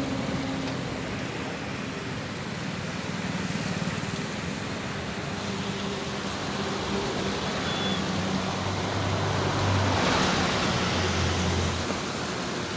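Road traffic passing over a rushing flooded river: a steady rushing noise with low engine hums, and one vehicle passing loudest about ten seconds in.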